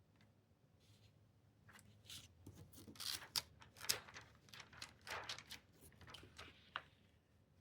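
Rhinestone template and transfer-film sheets being handled and smoothed into place: a faint run of irregular crinkles and rustles of plastic film, busiest in the middle.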